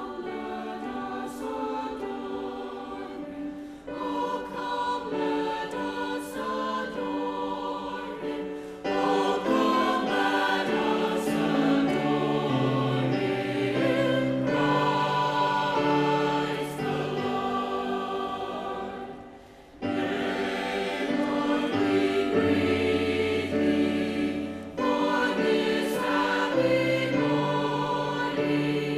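A choir singing in phrases, the sound dropping briefly between phrases a few times.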